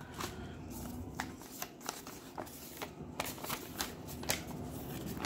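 Paper rustling and crackling in the hands: a folded sheet of paper being handled beside a padded mailer, making an irregular string of small crisp crackles.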